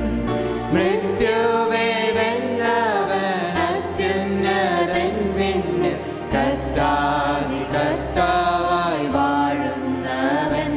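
A hymn sung by a small group of voices over instrumental accompaniment, with sustained bass notes that change every couple of seconds.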